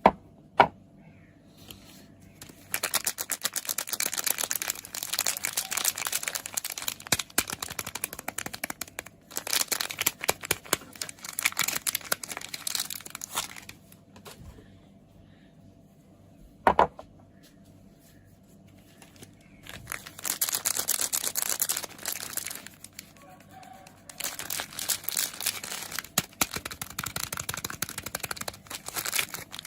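Soap packaging crinkling as it is handled and unwrapped by hand, in four long stretches of dense crackle with quiet gaps between. A single sharp knock comes about half a second in and another about midway.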